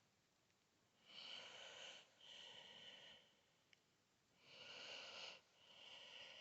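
Faint breathing close to the microphone, two slow in-and-out breaths about three seconds apart, with a tiny click between them.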